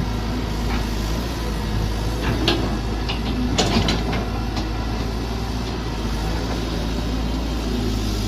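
Mini excavator's engine running steadily, with a cluster of sharp clicks and knocks from about two to four and a half seconds in.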